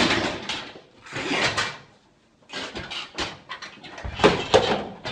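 A man straining loudly in rough, breathy bursts under a heavy barbell, then a run of knocks and thuds as the loaded bar and bench tip and he falls backwards.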